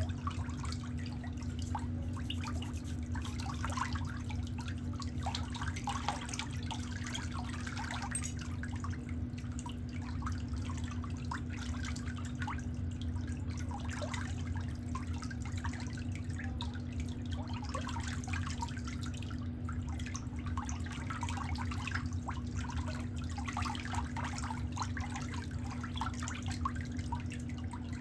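Water trickling and dripping over a steady low hum.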